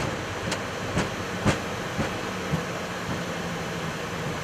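Boeing 737 MAX 8 rolling out on the runway after landing, heard in the cockpit: a steady rumble and hiss, with regular thumps about twice a second from the nose wheel bumping over the runway surface. The thumps come slightly further apart as the aircraft slows.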